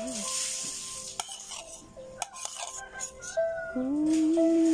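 Metal spoon clicking and scraping against a plastic container as cream and diced mango are spread over graham crackers. Background music plays throughout: its melody fades low early on and comes back loud about three and a half seconds in.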